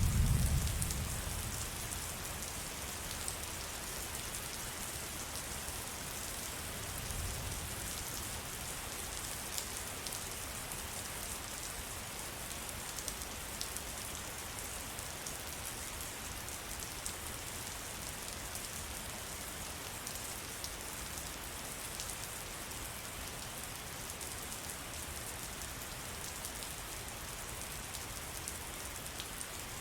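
Steady rain falling in a forest: an even hiss with many sharp individual drop hits. A low rumble at the very start fades over about two seconds, and a softer one comes about seven seconds in.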